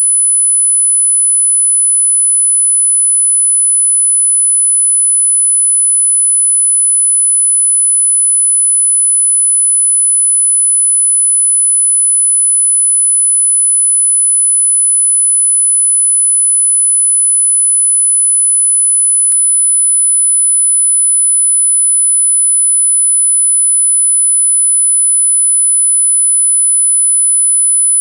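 A steady, very high-pitched pure electronic tone, held unchanged, of the kind played to startle a dog out of barking.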